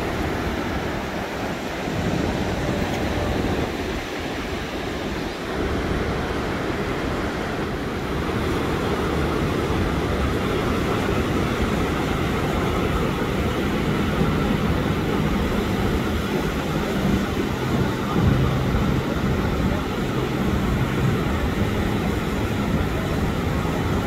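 Ocean surf breaking and washing up a sandy beach, a steady rush of noise with a low rumble of wind buffeting the microphone.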